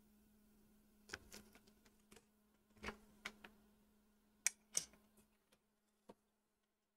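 Faint, scattered clicks and taps, about eight over six seconds, as the sliding metal clamps of a BGA chip holder are set around a GPU chip.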